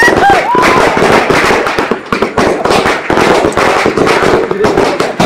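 Firecrackers going off on the ground in a rapid, uneven run of bangs and crackles, with a brief whistling tone that dips and rises in the first second.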